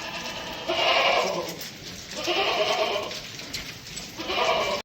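Goat bleating three times, each call about a second long and strongly pitched, with the sound cutting off suddenly after the last one.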